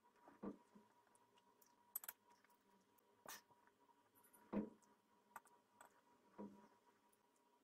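Metal fork cutting through a soft sponge cake and knocking and scraping against a ceramic plate: a few faint, separate clicks and scrapes, the loudest about four and a half seconds in.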